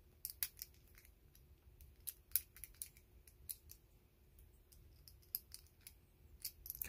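Faint, sharp metal clicks coming irregularly, from a precision screwdriver working small steel screws tight in a small steel tool, metal ticking against metal.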